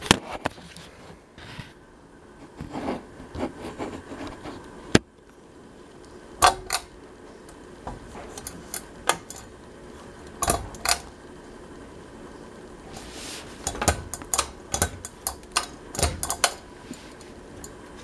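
Scattered clicks, taps and light metallic clinks as an unpowered Westinghouse Nova ceiling fan is handled. There is one sharp knock about five seconds in, and clusters of clinks around ten seconds and again toward the end.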